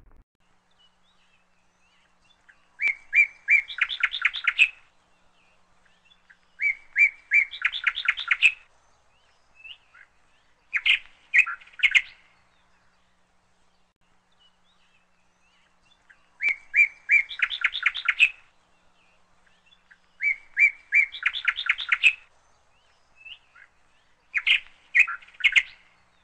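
Small songbird singing. Each phrase is a few clear, high chirps running into a fast trill, with near silence between phrases. The same run of three phrases plays twice, about fourteen seconds apart, as if looped.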